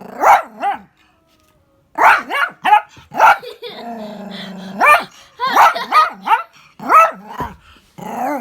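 Dog barking over and over in short, rising-and-falling barks, about ten in all, with a low growl in between: a dog worked up and playing wild.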